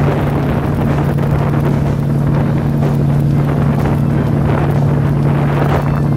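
A ferry's engines droning steadily on a low, even hum. Wind buffets the microphone on the open deck.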